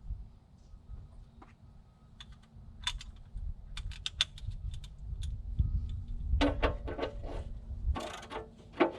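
Scattered sharp metallic clicks and ticks, bunching into quick clusters in the second half, from a wrench threading the oil drain plug back into a Kobelco SK250 LC excavator's oil pan and tightening it.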